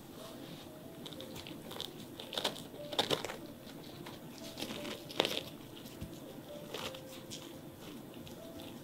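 Disposable gloves rustling, with soft crackles and a few sharper taps, as halved Oreo cookies are pushed firmly into warm chocolate s'more cookies.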